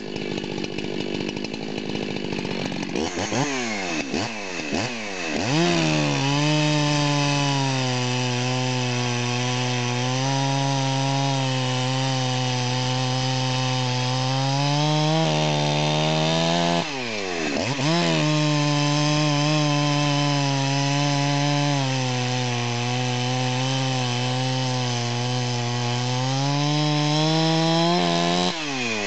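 Rebuilt Jonsered 2172 two-stroke chainsaw idling, then revving up about three seconds in and cutting through a seasoned western hemlock round at full throttle, with the engine note holding steady and sagging slightly under load. About halfway through the revs briefly rise and fall before a second long full-throttle cut, and near the end the engine revs free as the chain comes through the wood, then falls back.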